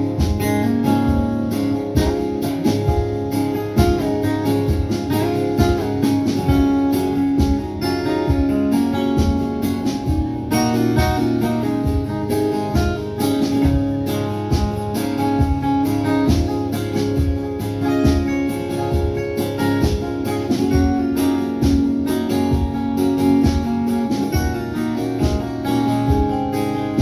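Live country band playing an instrumental break led by guitar, over a steady drum beat and bass.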